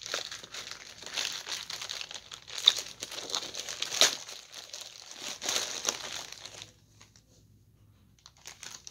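Plastic mailer packaging crinkling and crackling as it is pulled open by hand, with a few sharp louder crackles. The crinkling stops about three-quarters of the way through, leaving only faint rustles.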